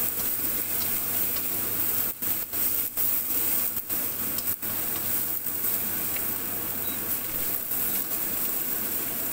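Minced ginger sizzling in hot oil in a wok as it is stirred: a steady hiss with a few brief breaks about two to five seconds in. The ginger is being sautéed until it turns light brown.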